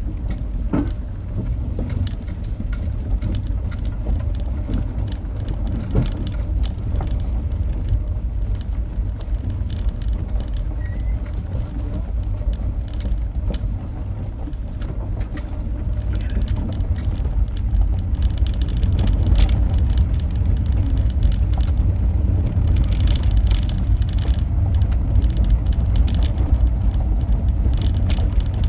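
Car driving over a rough gravel road, heard from inside the cabin: a steady low rumble of engine and tyres, with scattered sharp clicks and rattles from the gravel. The rumble and clicks grow somewhat louder after about 18 seconds.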